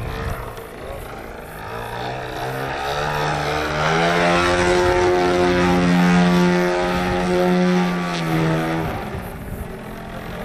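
Radio-controlled aerobatic model airplane's engine and propeller, rising in pitch as it throttles up over the first few seconds, holding a steady high note at power, then throttling back abruptly about nine seconds in.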